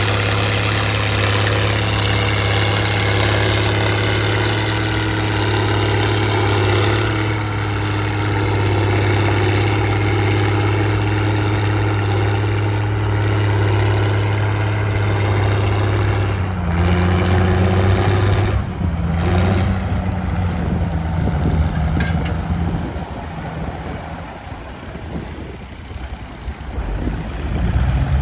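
Straight-piped six-cylinder diesel engine of a Case 1056XL tractor working under load while ploughing, with a steady, loud exhaust note. About halfway through the note changes pitch, then the sound fades somewhat for a few seconds and swells again near the end.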